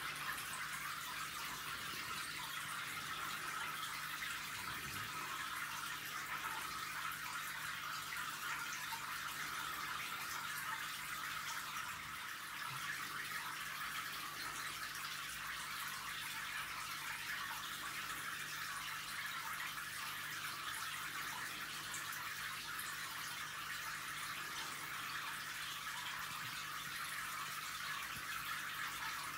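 Aquarium water running steadily, as a filter return stirs the tank, with a faint steady low hum underneath.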